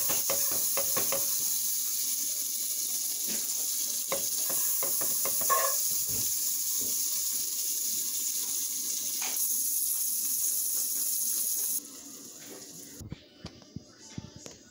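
Butter sizzling in a hot frying pan: a steady hiss with scattered crackles and pops, the crackles thickest in the first second or two. The hiss drops off sharply about twelve seconds in, leaving a much fainter sizzle.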